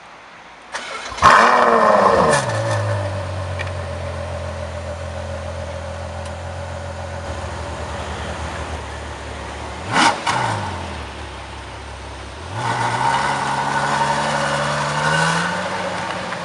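Ferrari FF's 6.3-litre V12 starting: a brief crank, then the engine catches with a loud flare of revs that falls back to a steady fast idle. About ten seconds in there is one quick sharp blip of the throttle. Near the end the revs climb steadily as the car accelerates, then ease off.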